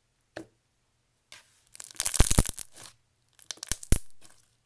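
Thick pom-pom slime squeezed and pressed by hand, crackling with bubble pops: a dense burst of crackles about two seconds in, then a second burst ending in two sharp pops near the end.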